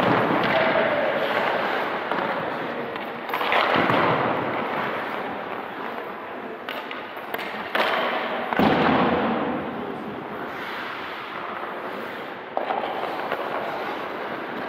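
Hockey goalie drill on ice: a few sudden knocks, each followed by a long fading scraping noise, as of pucks striking and skate blades scraping the ice.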